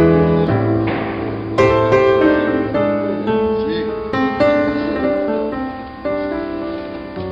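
Background instrumental music: slow chords struck every second or so, each left to ring and fade.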